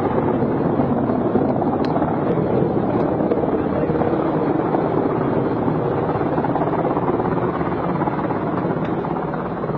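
Helicopter's engine and rotor running steadily, heard from aboard the aircraft.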